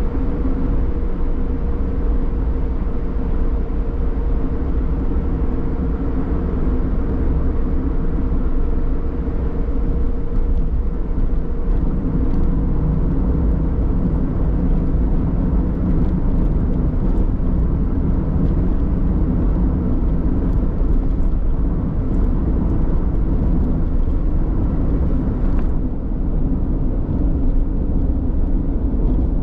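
Car driving along a road: steady engine and tyre noise.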